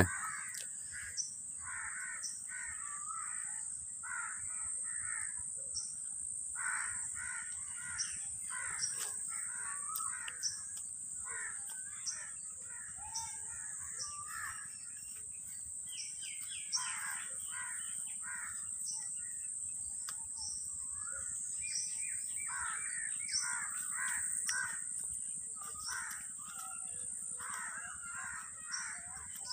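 Crows cawing in repeated runs of several harsh caws, over a steady high-pitched insect drone.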